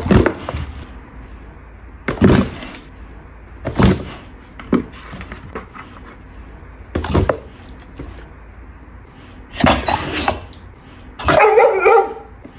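Short sharp knocks on a cardboard box, a second or two apart, as a Labrador noses at sticks popping up through its holes. Near the end the Labrador gives a pitched bark lasting under a second.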